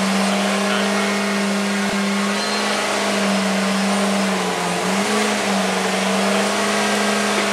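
MegaBots Mk. III robot's LS3 V8 engine and hydraulic pumps running, a loud steady hum over a wide hiss. The pitch sags briefly about halfway through.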